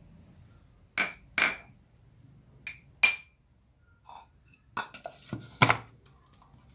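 A few separate clinks and knocks of kitchen utensils against dishes as pounded herbs are moved toward an electric grinder. The sharpest is a ringing metallic clink about three seconds in, with another cluster of knocks near the end; the grinder's motor is not running.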